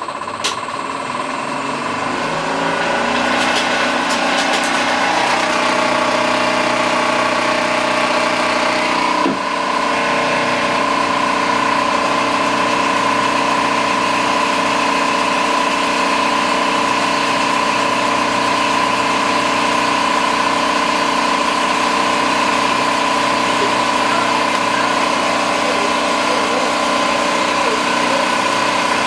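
Philips DP70 70 mm film projector starting up and running at 30 frames per second. Its mechanical hum builds over the first couple of seconds, then holds steady with a constant tone. There is a single sharp click about nine seconds in.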